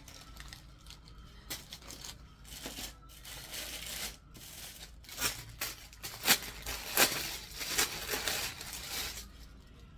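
Clothing being handled: irregular rustling and crinkling, with sharper crackles about six and seven seconds in.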